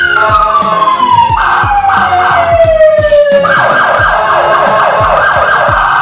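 Whelen HHS3200 electronic siren through two SA314P speakers: a held high tone slides slowly down in pitch over about three seconds. A fast warbling tone cuts in, breaks off briefly and then takes over about three and a half seconds in. Background music with a steady beat runs underneath.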